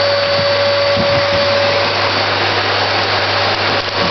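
Vacuum cleaner running steadily: a rush of air with a constant motor whine over it.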